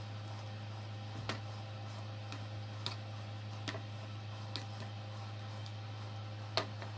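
A spoon tapping lightly against a ceramic-coated frying pan a handful of times as chicken pieces are turned in their simmering juices. A steady low hum runs underneath.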